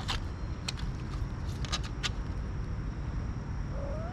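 Cat eating from a plastic bowl: a handful of sharp clicks from chewing and the bowl in the first two seconds, over a steady low rumble and a steady high insect drone. A short rising note sounds near the end.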